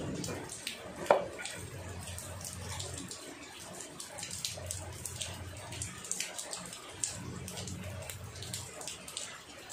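Water trickling and splashing, with scattered small knocks and clinks and one sharper knock about a second in.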